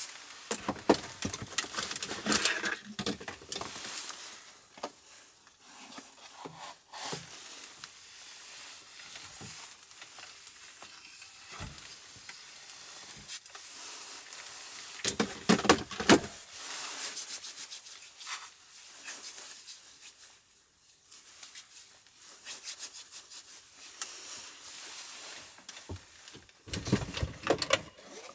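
Small handling noises: rubbing and rustling with scattered clicks and knocks as objects are picked up, moved and set down, including a small spray bottle. The busiest flurries come a second or two in, about halfway through, and near the end.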